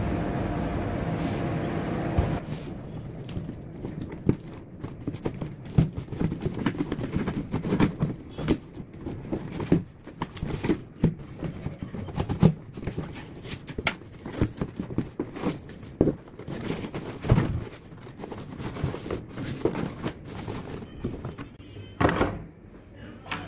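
A cardboard shipping box being handled and opened on a wooden desk: many irregular knocks, thuds and scraping handling sounds, with a louder thud near the end as a boxed item is set down.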